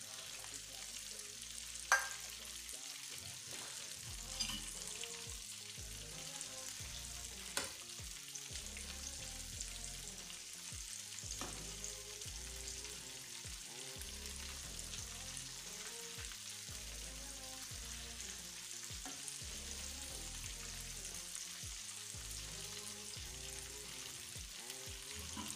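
Breaded chicken wings deep-frying in hot oil in a pot: a steady crackling sizzle while a spoon stirs them. A few sharp clicks cut through, the loudest about two seconds in.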